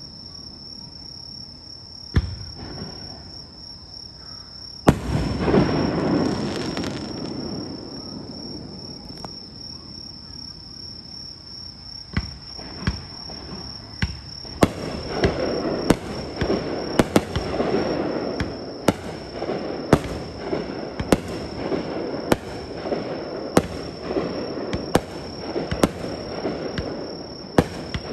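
Fireworks display: a single aerial shell bang about two seconds in and a louder one about five seconds in, then a barrage of shell bursts about one a second, with crackling between the bangs.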